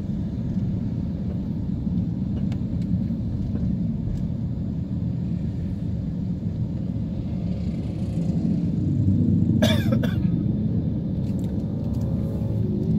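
A moving car heard from inside: a steady low rumble of engine and road noise, a little louder from about eight seconds in. There is one brief sharp sound about ten seconds in.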